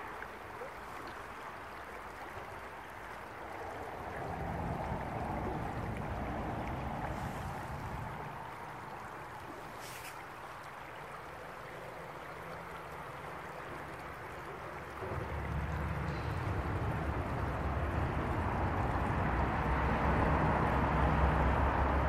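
Shallow stream flowing over stones, a steady rushing wash of water. A low rumble underneath grows louder about fifteen seconds in.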